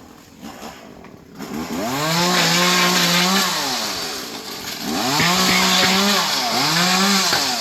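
Stihl chainsaw idling low, then throttled up to full speed about a second and a half in. It drops back around the middle and revs up twice more in bursts.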